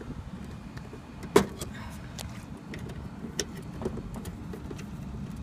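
Scattered small clicks and taps of wires and metal being handled in a rooftop HVAC unit's electrical panel, with one sharp knock about a second and a half in, over a steady low hum.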